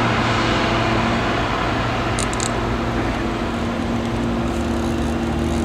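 Steady low mechanical hum of a running motor, its pitch shifting slightly partway through, with a brief cluster of faint high clicks about two seconds in.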